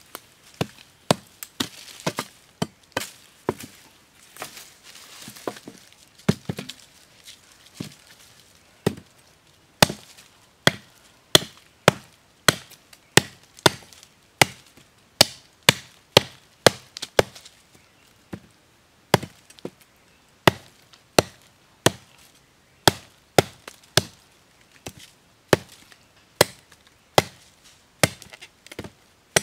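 Machete chopping into a wooden stick resting on a log, sharp single strokes, a few scattered ones at first, then a steady run of about two a second.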